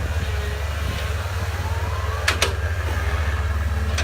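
Komatsu excavator's diesel engine running steadily at low revs, a deep pulsing rumble, with two sharp clicks a little over two seconds in.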